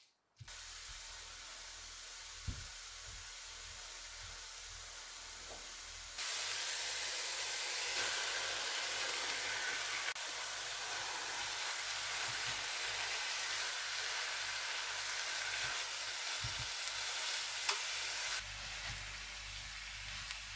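Chopped onion and then minced meat sizzling in oil in a nonstick frying pan, stirred with a spatula. About six seconds in the sizzle turns louder and stays steady, with a few short knocks of the spatula against the pan.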